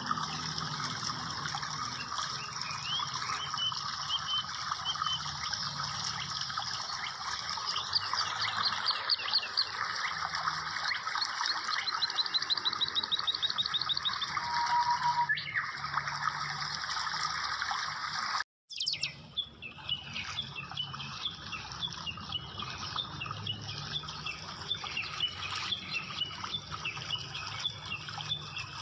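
Birds chirping and trilling over a steady rush of water. About two thirds through, the sound drops out for a moment, then the chirping carries on over a quieter background.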